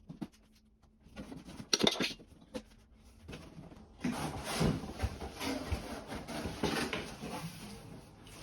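A cardboard bike box and its packaging being handled and opened. A few sharp knocks and clatter come about two seconds in, then several seconds of dense rustling and scraping.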